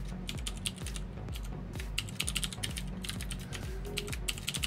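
Computer keyboard typing: quick runs of key clicks with short pauses between them, over low background music.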